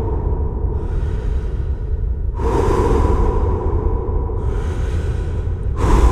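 A man breathing slowly in and out with an echo effect: long drawn breaths of about two seconds each, one after another, alternating stronger and softer. A steady low rumble runs underneath.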